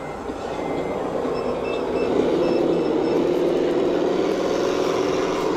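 Radio-controlled construction model running: a steady motor hum that grows louder about a second in and then holds, with a short string of high electronic beeps like a reversing alarm partway through.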